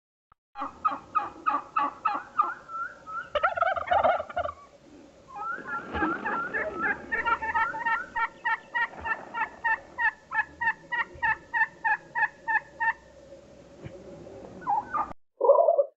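Domestic tom turkey gobbling in two long runs of rapid rattling notes. The second run starts about five seconds in.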